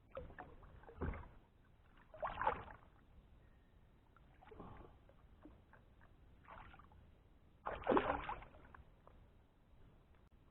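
Irregular knocks and swishes of handling in a kayak with some water movement, as a caught bass is let back into the creek. The loudest moments come about two and a half and about eight seconds in.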